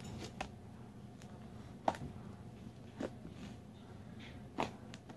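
Four faint, sharp clicks spread about a second apart over quiet room tone.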